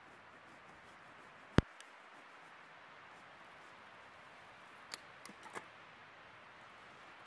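A split birch log set down on a stacked pile of firewood with one sharp wooden knock. About five seconds in come a few lighter clicks, over a faint steady hiss.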